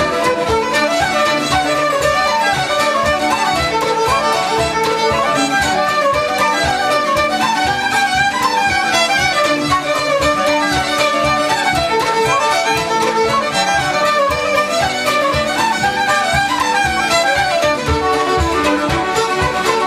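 Irish traditional music led by a fiddle, with a steady beat underneath.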